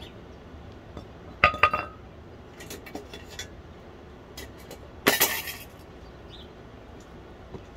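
Steel clanks as an ingot mold and the lid of a homemade metal-melting furnace are handled and set down on concrete. There is a sharp ringing clank about a second and a half in, a few lighter clinks, then a longer clatter about five seconds in.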